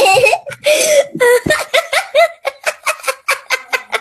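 A boy laughing hard: a giggle, then from about a second and a half in a fast run of short 'ha' bursts, about six a second.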